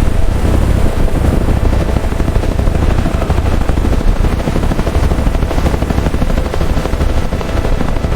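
Helicopter rotor chopping steadily with a heavy low rumble.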